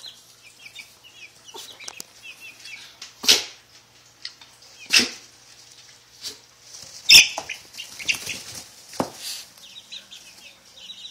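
Young chickens peeping, many short falling peeps one after another, broken by about four brief louder rustles or thumps.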